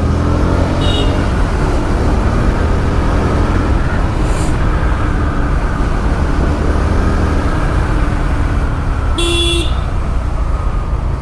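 Road noise while riding a Yamaha FZ motorcycle: steady wind rumble on the microphone over the engine running. A vehicle horn honks briefly about nine seconds in.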